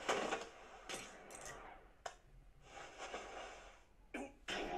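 Faint sound effects from the anime soundtrack: a few short knocks and brief hisses, spread out and irregular.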